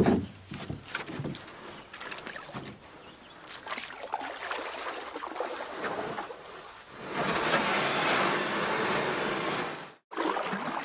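Water splashing and lapping around a canoe as it is paddled, with a sharp knock right at the start. A steadier rush of wind and water builds a little past the middle, then the sound cuts out for an instant near the end.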